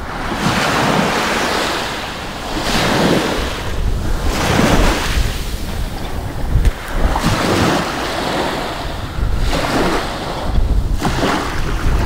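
Small waves washing in over a sandy beach, swelling and fading every couple of seconds, with wind buffeting the microphone as a steady low rumble.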